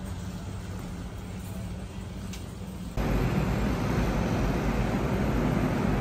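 Quiet supermarket ambience with a low steady hum. About halfway through it cuts suddenly to louder, steady city traffic noise with a deep rumble.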